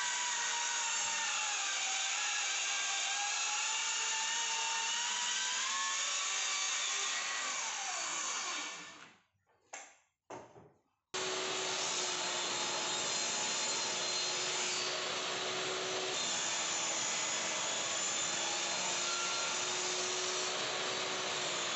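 Electric power saw running and cutting 18 mm melamine-faced blockboard, a steady dense noise with a whining tone. About eight seconds in the whine drops in pitch and fades out. After about two seconds of near silence the saw sound resumes and holds a steady pitch.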